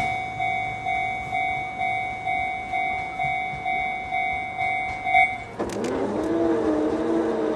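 Japanese level-crossing warning bell ringing in even electronic strokes at about two a second, stopping about five seconds in. A click follows, then a motor whir that rises in pitch and holds steady as the crossing barrier lifts.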